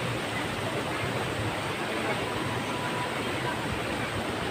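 Steady rush of flowing river water, an even noise with no break.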